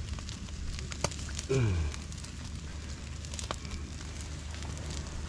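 Wood fire crackling, with scattered sharp pops over a low steady rumble.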